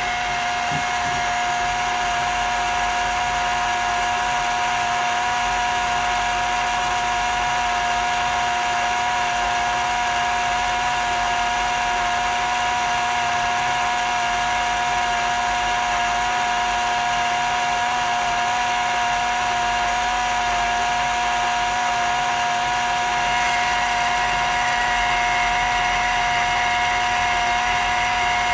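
Ninja Blast cordless portable blender's battery-powered motor running a second blend cycle, a steady whine that holds one pitch, mixing a smoothie that is already nearly smooth.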